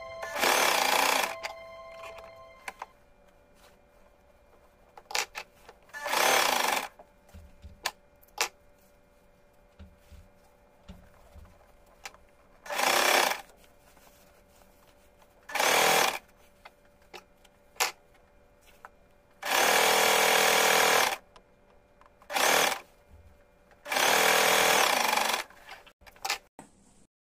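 Electric sewing machine stitching in seven short runs of about one to two seconds each, with quiet pauses and small handling clicks between runs as the fabric is repositioned.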